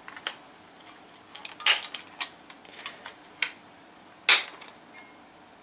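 Thin protective plastic wrap being pulled off a CPU cooler, crinkling in a series of sharp crackles and snaps, the loudest about four seconds in.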